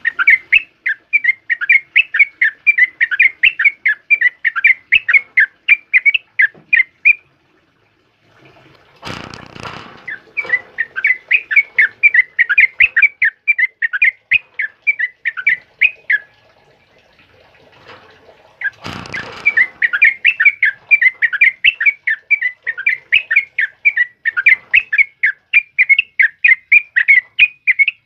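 Yellow-vented bulbul (trucukan) singing nonstop in long runs of rapid chattering notes, about four a second, in three runs split by short pauses. Two brief rustling noises come at the start of the second and third runs.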